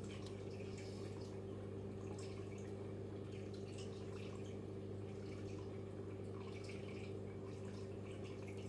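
Faint, scattered light clicks of small plywood model parts being handled and fitted by hand, over a steady low hum.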